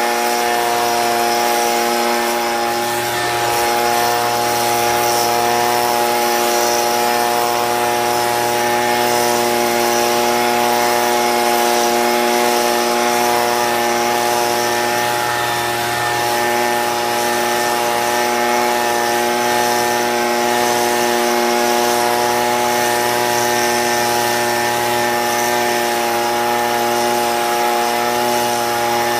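Stihl BG55 handheld leaf blower's two-stroke engine running at a steady speed, with an even rush of air from the nozzle.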